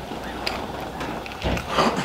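Chairs creaking and scraping with scattered knocks as a roomful of people stand up, with a louder scrape about one and a half seconds in.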